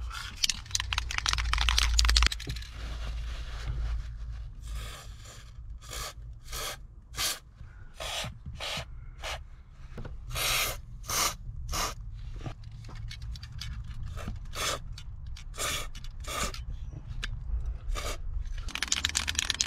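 Aerosol can of white lithium grease: first a couple of seconds of rattling as the can is shaken, then a long series of short spray hisses, one or two a second, as grease is squirted through the straw onto the car's door hinges.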